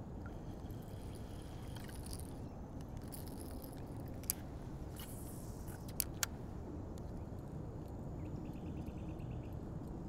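Handling of a baitcasting fishing rod and reel while working a lure: a few sharp clicks, two of them close together about six seconds in, and a short run of rapid even ticking near the end, over a low steady background rumble.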